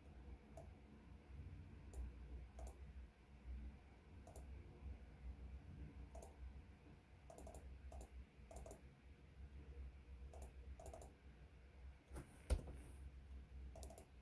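Faint, irregular small clicks and light taps over a low steady hum, with one sharper knock about twelve and a half seconds in.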